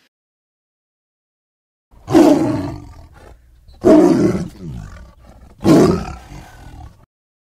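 A big cat roaring three times, each roar starting loud and tailing off over about a second, after about two seconds of silence.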